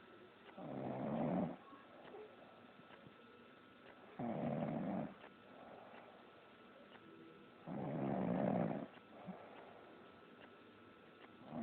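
Loud snoring: three snores, each lasting about a second and coming about every three and a half seconds, with a fourth starting at the very end and quieter breathing between.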